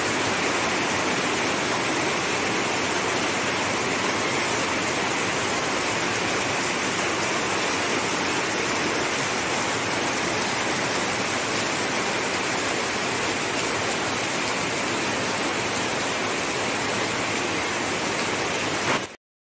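Steady heavy rain falling on palm fronds and dense foliage, an even hiss that cuts off suddenly near the end.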